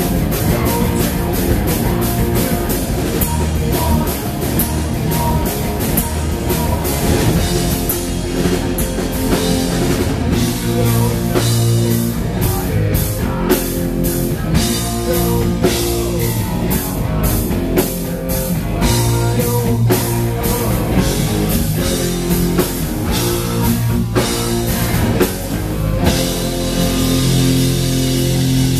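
Live punk rock band playing at full volume: a fast drum kit with sharp, regular hits under electric guitar and bass.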